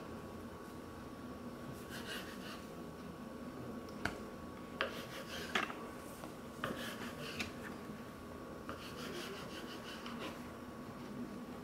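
Kitchen knife cutting soft dough on a wooden butcher-block board: quiet scrapes of the blade and dough on the wood, with a few light taps near the middle. A faint steady hum runs underneath.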